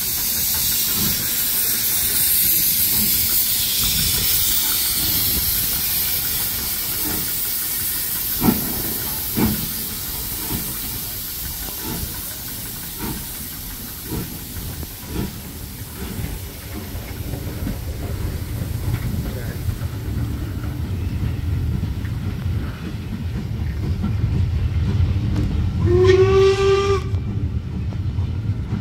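Steam hissing loudly from LMS Black Five 4-6-0 No. 44871 as the steam train pulls past, fading over the first several seconds. The coaches then roll by with a building low rumble and scattered wheel knocks, and about 26 seconds in a short steam whistle sounds for about a second.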